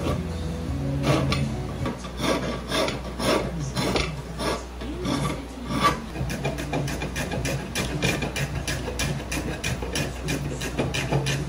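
A hand rasp scraping the end grain of a wooden block in repeated push strokes, irregular at first, then quicker at about three strokes a second, over a steady low hum.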